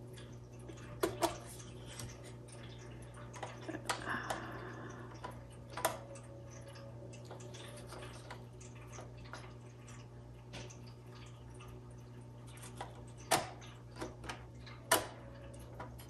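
Scattered light clicks and knocks from a 1954 Royal HH manual typewriter being worked by hand: the top cover lifted and the ribbon spools and mechanism handled. A low steady hum runs underneath.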